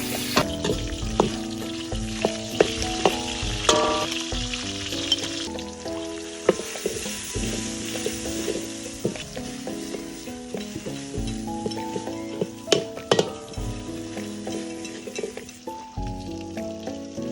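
Food frying in a pan with a steady sizzle, and sharp clicks and scrapes of a utensil stirring it. Background music with a beat plays underneath.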